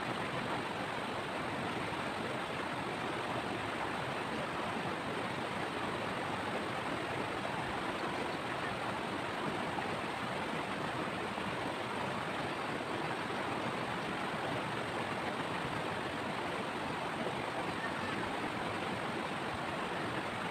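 River water rushing steadily over rocks and boulders in a shallow stream.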